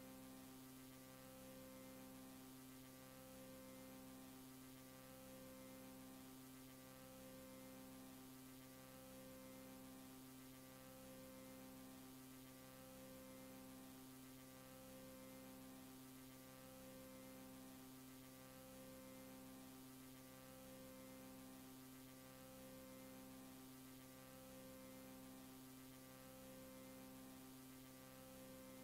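Near silence with a faint steady electrical hum from VHS tape playback: a few low steady tones under light hiss, one of them pulsing on and off about every second and a half.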